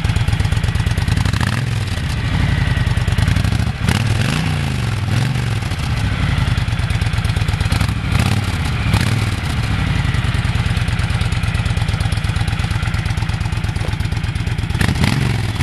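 Honda VTX 1300R's V-twin running through its stock exhaust, recorded close to the rear left pipe: a steady idle pulse, with the throttle blipped a few times between about two and nine seconds in.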